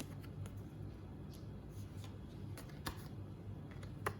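Faint ticks and light rustles of Pokémon trading cards being handled and flicked through, over a low steady hum.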